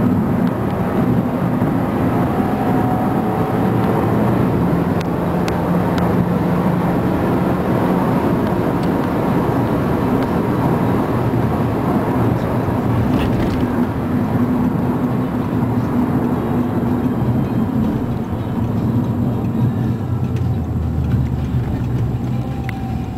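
Audi S3's turbocharged four-cylinder engine and tyre noise heard from inside the cabin while driving. The engine note shifts up and down in pitch a few times as the car speeds up and eases off.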